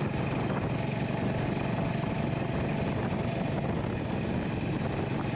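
Honda GB350 motorcycle's single-cylinder engine running steadily while the bike is ridden along a road.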